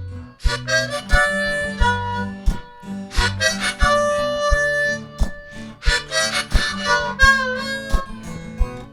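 Harmonica solo with bending notes over strummed guitar, a bass line and a steady foot-stomp beat, played by a one-man band.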